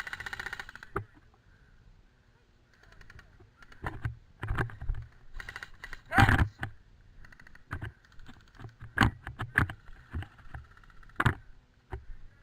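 Irregular knocks, thumps and rustling picked up close by a helmet-mounted camera as the player moves with his gear, with a louder knock about six seconds in and two more sharp knocks later.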